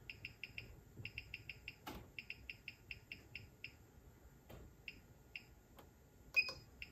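Faint, high-pitched chirping in quick runs of short pips, several a second, with a single sharp click about two seconds in.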